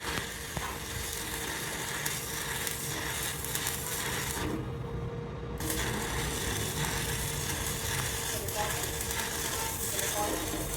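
Electric arc welding: a steady crackling sizzle with a faint hum underneath.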